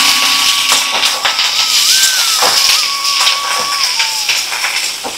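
Eggplant, potato and onion pieces sizzling in hot oil in a kadai, stirred with a metal spatula that scrapes and clinks against the pan several times. A thin, steady whistle-like tone that wavers a little in pitch runs underneath.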